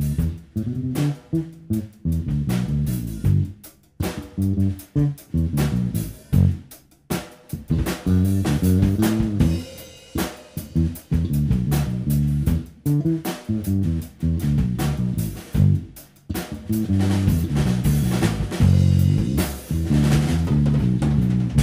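Background band music with drum kit, guitar and bass guitar playing a steady beat.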